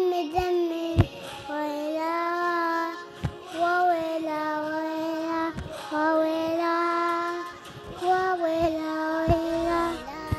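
A young child singing a slow melody in long held notes, phrase after phrase with short breaks between them.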